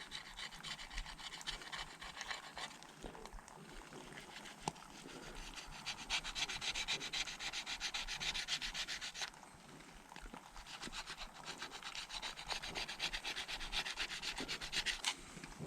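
Plastic gift card scraping stripper-softened paint off a Kawasaki KX65 dirt bike part in quick back-and-forth strokes. The strokes are louder in two long spells, the second starting about ten seconds in.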